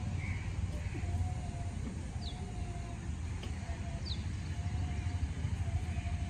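Open-air background noise: a steady low rumble, with a few faint, short, falling bird chirps and a faint tone that comes and goes.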